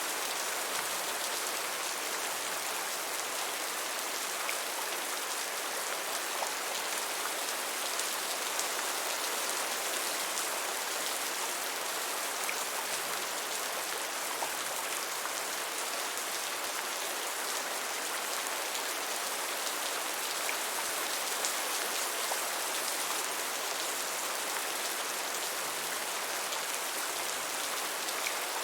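Steady gentle rain falling on a surface: an even hiss with scattered individual drop ticks.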